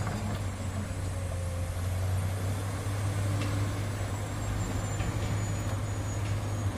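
Heavy diesel engine running at a steady, even speed, a constant low hum with no revving, and a few faint ticks.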